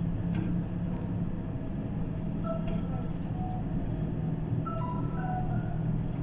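Steady low rumble of a tour coach in motion, with faint music of short held notes playing over it.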